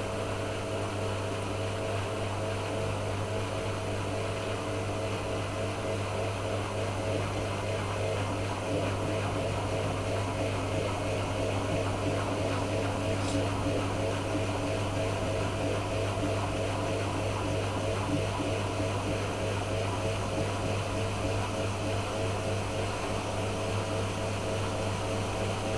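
Miele washing machine motor and drum in the first interim spin of a full-load cottons wash, humming steadily with a motor whine while the spin speed ramps up very slowly and the level creeps up a little. The owner thinks the slow ramp is the machine guarding against a suds lock or water lock with the full load.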